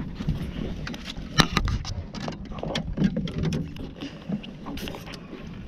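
Irregular knocks and clatter of fishing gear against the boat, the loudest about a second and a half in, over a low rumble of wind on the microphone.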